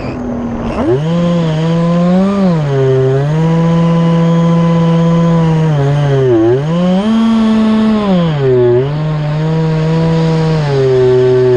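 RMRC Recruit FPV flying wing's electric motor and propeller whining in flight, heard from its onboard camera, running on a 4S battery. The pitch dips and climbs several times as the throttle is eased and opened again.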